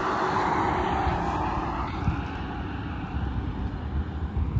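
Road traffic: a passing car's tyre and engine noise, loudest in the first second and easing after, over a steady low rumble.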